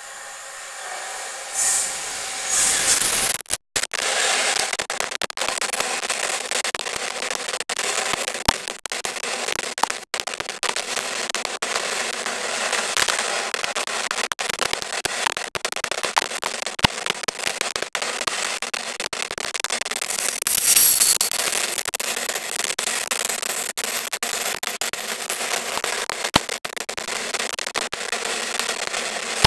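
Freight train passing at speed: a Class 66 diesel locomotive's two-stroke V12 goes by in the first few seconds, then a long rake of EWS wagons rolls past with a dense, loud clatter of wheels on rail, punctuated by frequent sharp clicks and knocks.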